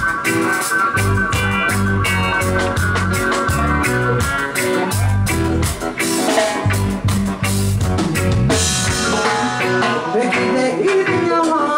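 Live reggae band playing a steady bass line and drums with guitar. A woman's singing voice comes in over the band near the end.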